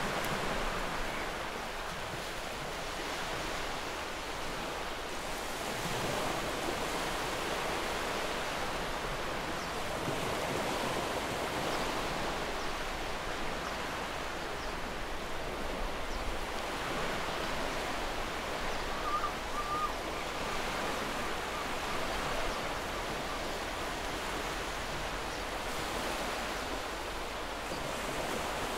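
Steady rushing noise of surf washing in, like an ocean-waves ambience track, swelling and easing gently.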